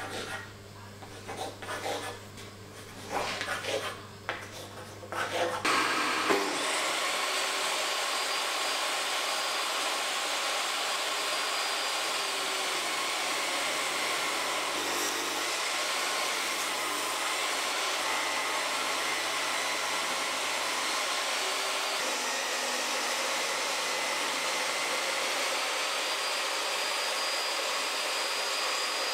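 A few scattered knocks and taps, then from about six seconds a table saw runs steadily, ripping a black walnut board, with dust-extractor noise. The sound cuts off suddenly at the end.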